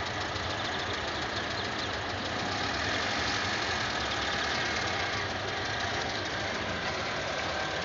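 Steady mechanical running noise, like an engine or machinery idling, with no separate knocks or bangs.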